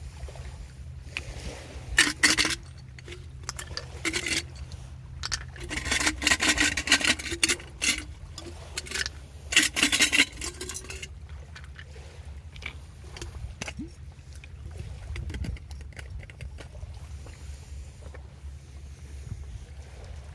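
Bursts of scraping and rubbing, a few short strokes followed by two longer runs of rapid strokes in the first half, then only scattered light clicks, over a steady low rumble.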